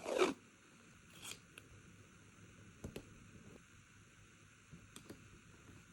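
Stickers and washi tape being handled, peeled and pressed down on paper. There is a short rasping peel right at the start, then a few faint scattered clicks and crackles, about one, three and five seconds in.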